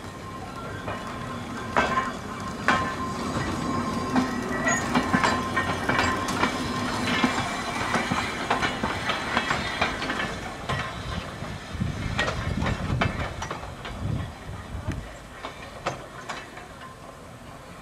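Manx Electric Railway open crossbench tramcar rolling slowly on steel rails, its wheels clicking and clattering over rail joints and pointwork with a low rumble. The knocks grow louder through the middle and fade as the car moves away.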